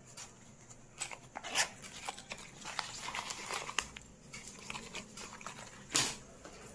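Irregular small clicks, taps and crinkles from small objects being handled, with a louder sharp click about six seconds in.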